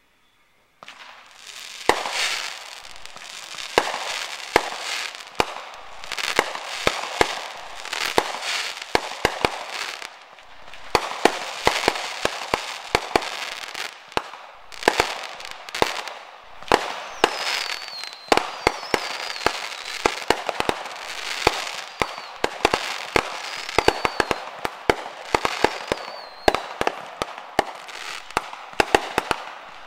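New Year fireworks and firecrackers going off all around: a dense run of sharp bangs and pops over a constant crackling haze, starting about a second in. A high wavering whistle cuts through now and then in the second half.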